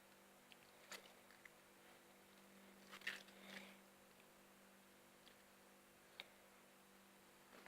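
Slime being handled: a few faint wet squishes and clicks, the clearest about three seconds in, over a steady low hum.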